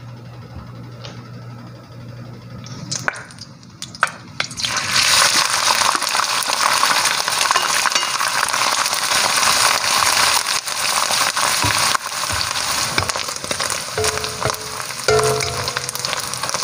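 Salted fish, head and bones removed, hitting hot oil in a stainless steel wok and frying with a loud, steady sizzle that starts about four seconds in. Near the end a wooden spatula stirs the fish, scraping against the wok.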